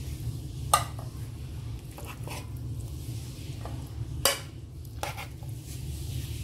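A spoon scraping and scooping thick vegetable-and-chickpea curry in a non-stick pan, with two sharp clinks, about a second in and again after about four seconds, over a steady low hum.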